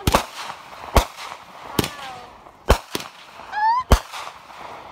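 Aerial fireworks bursting overhead: about seven sharp bangs at irregular intervals, some in quick pairs, the loudest one near the end.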